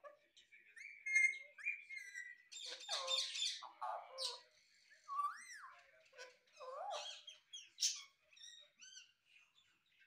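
Alexandrine parakeet calling in an irregular run of chirps, squawks and whistled glides that rise and fall, with short pauses between.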